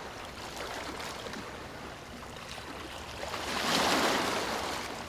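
Ocean surf: water washing with a light crackle, one wave swelling to its loudest a little past halfway and then falling back.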